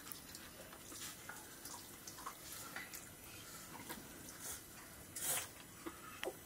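Faint, scattered soft clicks and squishes of rice being mixed and eaten by hand from metal plates, with a louder short hiss about five seconds in.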